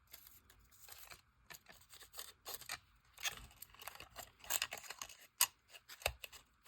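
Small objects being handled on a tabletop: a run of irregular light clicks, taps and rustles, with a sharper tap about five seconds in.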